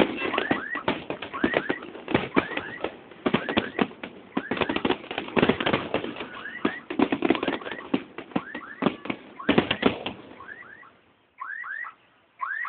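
Fireworks going off in a dense, irregular series of pops and crackles, mixed with short rising whistles. The sound almost drops out briefly about eleven seconds in.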